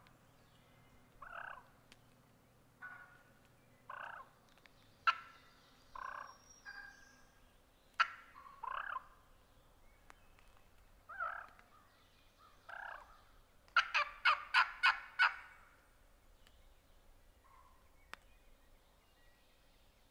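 Wild turkey hen calling: a string of short single calls spaced a second or so apart, then a loud, rapid run of six or seven notes about two-thirds of the way through, the hen gobbling.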